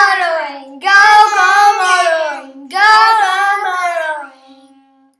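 A high voice singing three falling phrases, each a second or two long with a short break between, the last one trailing off near the end.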